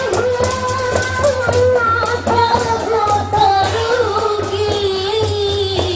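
Music: a singer holding long, wavering, drawn-out notes over light percussion.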